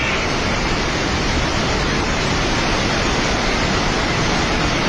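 Steady, loud rushing of a river in flood, swollen by a glacier burst.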